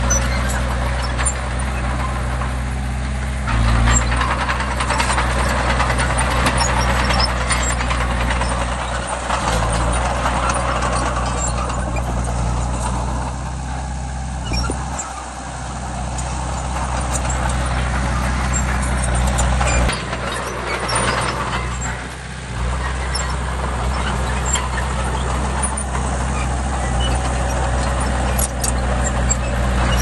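Diesel engine of a Hitachi mini bulldozer running steadily at working speed, with clattering and hissing noise over it; the engine note briefly dips about three times.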